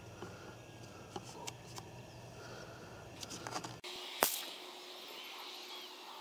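Faint small clicks over a low hum, then after an abrupt cut a single sharp shot from a CZ 455 .17 HMR rimfire rifle about four seconds in, with a short decaying echo.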